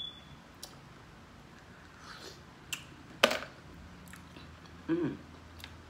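A person eating seafood from a seafood boil: quiet chewing and mouth noises with a few sharp smacks, the loudest a little over three seconds in, and a short hummed "mm" near the end.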